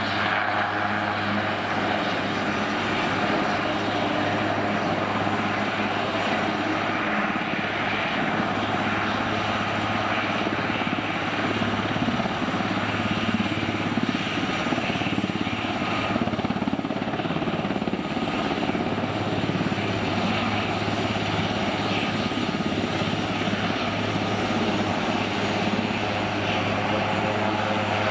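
Swiss Air Force AS532 Cougar helicopter taxiing with its twin turboshaft engines and rotors running. The sound is steady, with a low hum and a thin high whine over it.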